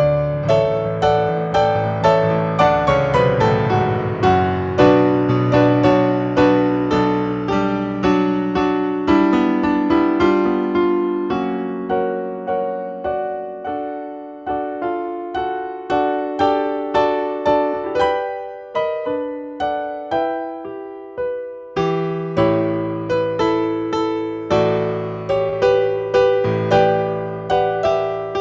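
Solo piano playing an instrumental piece in struck, gently decaying chords. The low bass notes drop out for a while in the middle, then come back.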